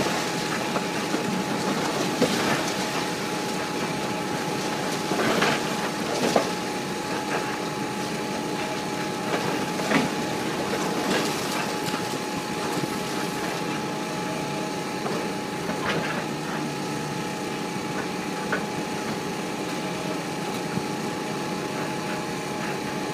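Long-reach demolition excavator running steadily under load, with a steady whine through it, while its jaw attachment breaks reinforced concrete: several sharp cracks and crashes of breaking and falling concrete, the loudest in the first half.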